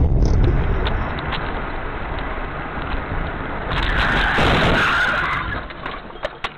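Inside a car: steady road and engine rumble. About four seconds in comes a loud skid of tyres lasting a second or two, then a few sharp clicks near the end.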